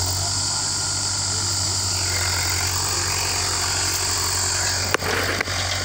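Farmtrac 6055 tractor's diesel engine running steadily under load as it pulls a tillage implement through the field, a low rhythmic drone. Two sharp clicks about five seconds in.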